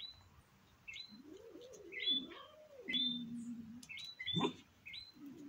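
A cat's low growling moan, rising and falling in pitch for about two and a half seconds in the middle, over short high bird chirps repeating about once a second.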